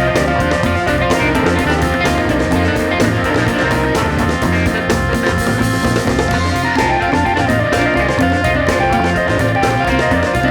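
Rock band recording: guitars over bass guitar and a drum kit keeping a steady beat.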